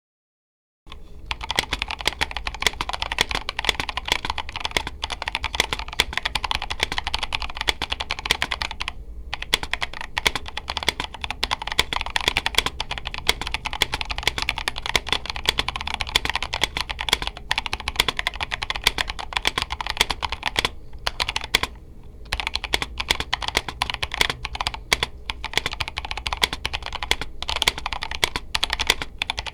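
Fast, continuous typing on a stock Drop CTRL High Profile mechanical keyboard with Gazzew Boba U4T tactile switches, stock stabilizers and PBT MT3 keycaps. The owner calls this out-of-the-box sound a little pingy and unrefined, with poor stabilizers. The typing starts about a second in and has a few short pauses.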